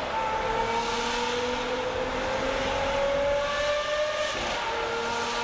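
Lamborghini Aventador V12 with a Brilliant Inconel aftermarket exhaust pulling under steady acceleration, its pitch climbing slowly for about four seconds, then dropping sharply at an upshift. Heard from inside the cabin, with tunnel echo.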